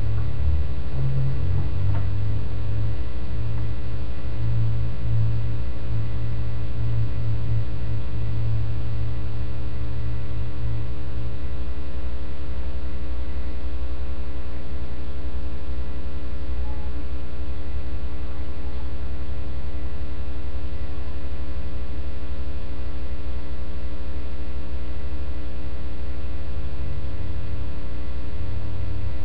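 Loud, steady electrical mains hum: a low drone with a stack of steady overtones, unchanging throughout.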